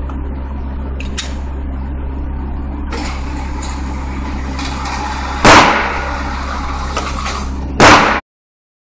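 Indoor range ventilation humming steadily while the electric target carrier runs, bringing the paper target back up the lane. Two loud gunshots ring out about two and a half seconds apart, echoing in the enclosed range; the sound cuts off abruptly just after the second.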